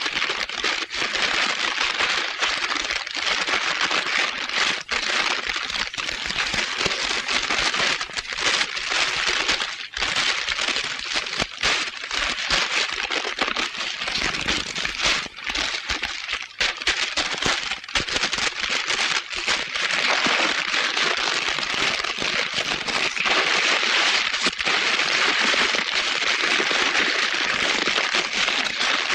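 Loud, steady static-like hiss full of dense crackling, growing slightly louder near the end.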